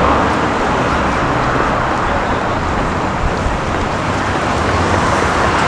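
Steady city street noise dominated by road traffic running past.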